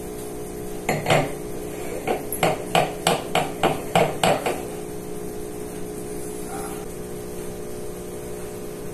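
Wine glass base knocking against a wooden table as the glass is swirled on the tabletop: two knocks about a second in, then a quick run of about ten knocks, about four a second, for some two seconds.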